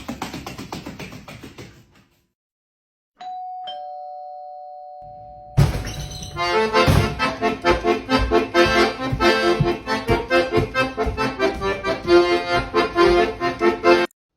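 A two-note ding-dong doorbell chime, a higher note followed by a lower one fading away, about three seconds in. From about five and a half seconds it is followed by lively music with a steady beat.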